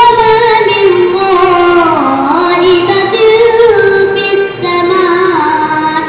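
A young girl chanting Qur'anic recitation (tartil/tadarrus) in a melodic style through a microphone and loudspeaker: long held notes with sliding ornaments, one phrase after another, with a short breath pause about four and a half seconds in.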